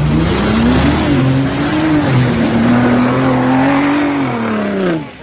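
Ford Raptor pickup truck's engine revving up and held at high revs under load, over a steady rush of tyres churning mud and water spray. Near the end the engine note drops and the sound cuts off abruptly.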